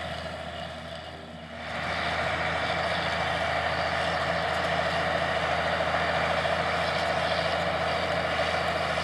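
Allis-Chalmers 200 tractor's turbocharged six-cylinder diesel running steadily under load while pulling a tandem disk through the soil. It dips in loudness about a second in, then comes back louder and holds steady.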